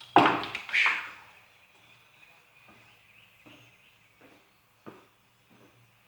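Objects being moved and set down: two short clattering knocks about a second apart, then a few faint knocks and taps.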